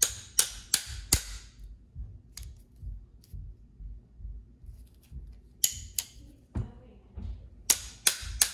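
Steel pliers used as a hammer, striking a small metal driver bit set into a plastic electric toothbrush handle to knock an internal part out, each blow a sharp metallic tap with a short ring. A run of four quick strikes comes first, then a lull, then another run of blows near the end.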